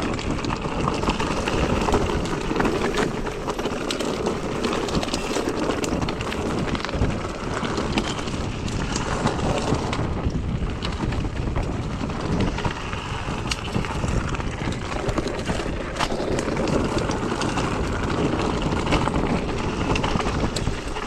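Mountain bike riding a trail: wind rushing over the microphone and tyre noise, with frequent sharp clicks and knocks from the bike over bumps.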